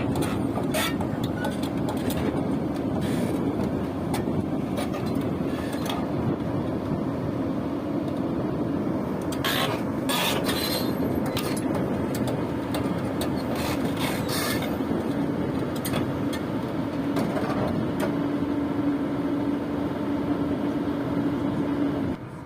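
Heavy diesel vehicle engine running steadily, with scattered metallic knocks and clanks, several close together a little before halfway. A steady hum in the engine sound grows stronger in the last few seconds, then the sound cuts off suddenly just before the end.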